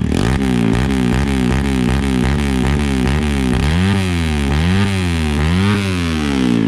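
Kawasaki KLX 150 single-cylinder four-stroke engine being revved through a new aftermarket Radamel exhaust, with a sharp, "spicy" note. The throttle is blipped in quick rev-ups, about three a second, then in bigger, slower revs in the second half.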